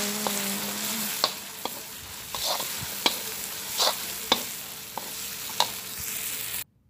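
Curry paste, onions and tomato sizzling in oil in a wok while a metal spatula stirs them, with sharp scrapes and taps of the spatula against the pan at irregular intervals. The sound cuts off suddenly near the end.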